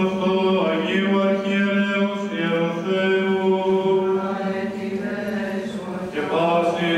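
Byzantine chant of an Orthodox church service: male voices sing a slow melody over a steadily held drone note (the ison). A new phrase starts near the end.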